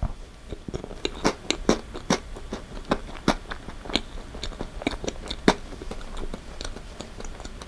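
Close-up chewing of a mouthful of moist chocolate sponge cake and chocolate cream, full of wet, sticky mouth clicks and smacks that come thickest in the middle seconds.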